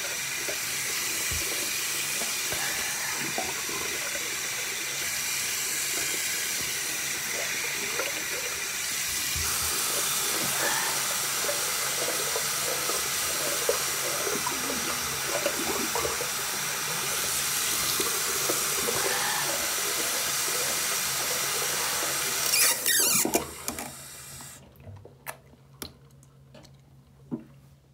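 Bathroom sink tap running steadily with water splashing as a face is rinsed; a little over twenty seconds in the tap is shut off, leaving scattered drips and small splashes.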